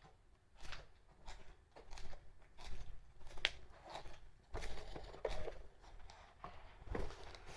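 Footsteps in Azalea Wang Gorman slanted-heel pumps: a series of uneven heel clicks and scuffs, roughly one or two a second.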